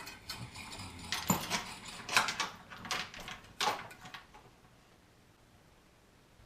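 A run of clattering knocks, clicks and scrapes of hard objects being handled, lasting about four seconds.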